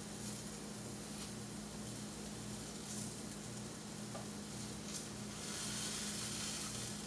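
Pancake batter sizzling in butter on a hot stovetop griddle: a steady soft hiss that grows a little louder about five seconds in, over a low steady hum.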